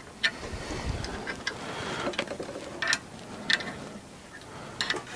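Scattered light clicks and taps of metal parts being handled on an aluminium-frame Prusa i3 3D-printer kit, a few sharp knocks spaced irregularly over low handling noise.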